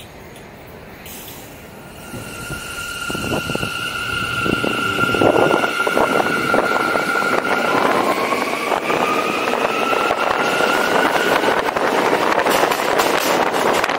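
New York City subway train pulling away from a standstill and accelerating, its traction motors whining in steady tones, then a second tone gliding upward about eight seconds in. A rising rumble and wind noise on the outside-mounted microphone build underneath, and wheels click over the track near the end.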